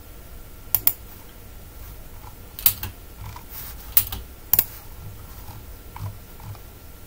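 Irregular sharp clicks from a computer mouse and keyboard, some in quick pairs and some single, with fainter clicks between, over a low steady background hum.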